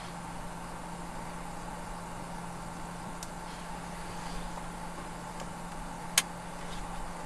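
Steady low hum over a background hiss, with one sharp click about six seconds in.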